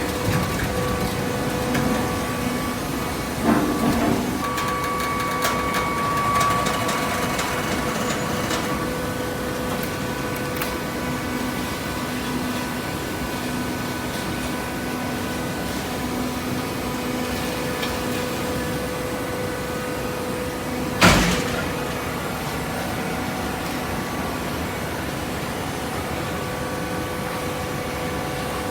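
Hydraulic baler for corrugated paper running with a steady mechanical hum. A single sharp clank comes about two-thirds of the way through.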